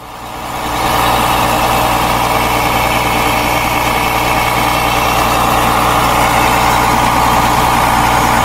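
Case IH Steiger 500's 12.9-litre Cursor diesel engine running steadily, rising to full level about a second in.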